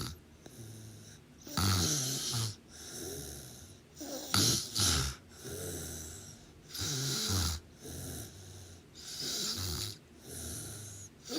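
A sleeping person snoring in a steady rhythm. Loud snores come about every two and a half seconds, with quieter breaths between them.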